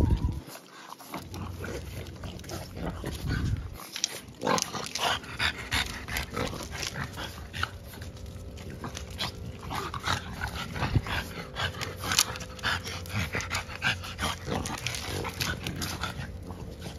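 French Bulldogs, puppies and an adult, making dog noises while they play-wrestle, with many short scuffles and clicks of paws on concrete and the plastic pen.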